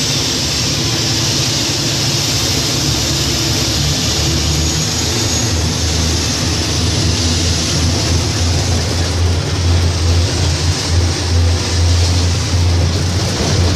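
Large mining haul truck's diesel engine running steadily as the truck drives, heard from inside the cab: a loud, steady low drone with a hiss over it.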